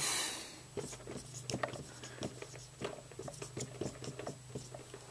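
Marker pen writing on a whiteboard: a run of short, irregular taps and scratches of the tip as letters are drawn. It opens with a brief hiss.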